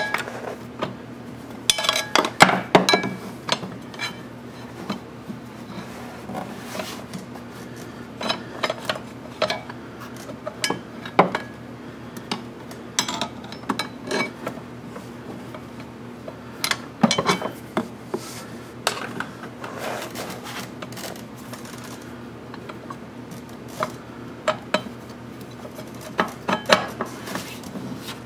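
Irregular metal clinks, taps and scrapes of hand work on a motorcycle's rear brake caliper and pads, in small clusters, over a steady low hum.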